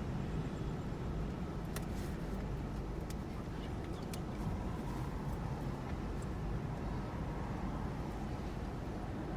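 Steady rain of a thunderstorm, an even rushing noise that is heaviest in the low end, with a few sharp ticks in the first half.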